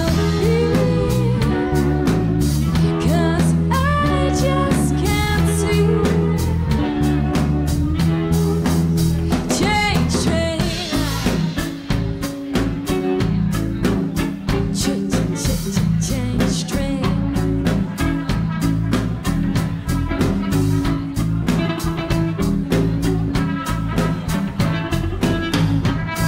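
Live band playing a song: a woman sings over electric guitar and drum kit for roughly the first ten seconds, then the band plays on with the vocal mostly dropping out.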